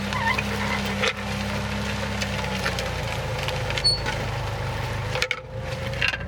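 Tractor engine running under load while a disc harrow crunches and splinters through flood-damaged corn stalks, a constant crackle over a steady engine hum.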